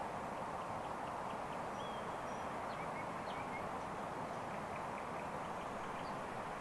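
Faint, short bird chirps and a few brief whistles over a steady rushing background noise.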